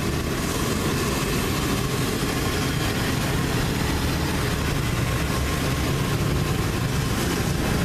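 Busy street traffic: motorcycle and car engines running steadily as they pass close by.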